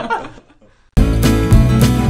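Laughter fades out, a short gap, then background music with a steady beat starts abruptly about a second in.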